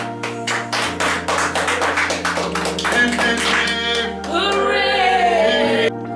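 A small group clapping fast and in rhythm, about five claps a second, then several voices raised together in a cheer that cuts off suddenly, over steady background music.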